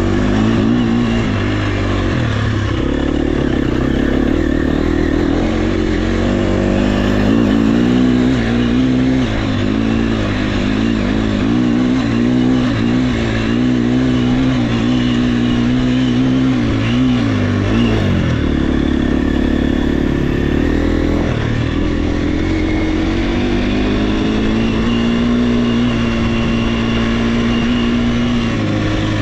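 Enduro motorcycle engine running hard off-road, its pitch rising and falling continuously with the throttle. It drops off briefly about two-thirds of the way through, then picks up again.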